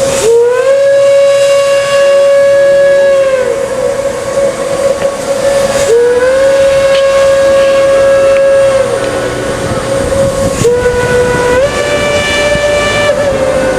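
Reading T-1 No. 2102 steam locomotive's whistle blowing three long blasts, each sliding up to pitch as it opens, over a steady hiss of steam. The last blast steps up in pitch partway through.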